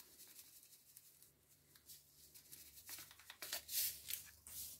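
Faint crinkling of a paper sachet of vanilla sugar as it is torn open and emptied into a mixing bowl, a cluster of small crackles in the second half.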